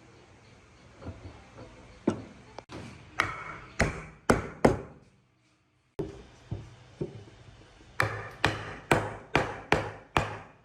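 A tool striking wood over and over, about two sharp knocks a second, each ringing briefly. The knocks stop briefly about five seconds in, then resume at the same pace.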